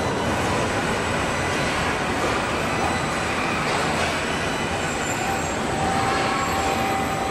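Steady machinery noise of an automated car body assembly line, a constant rumble and hiss with faint high tones, and a thin whine that comes in about five seconds in.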